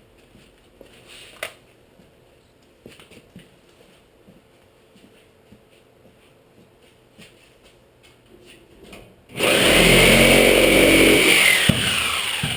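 An electric power tool runs in one loud burst of about three seconds, starting about nine seconds in, its motor whine dropping as it stops. Before it there are scattered light clicks and knocks of hand work.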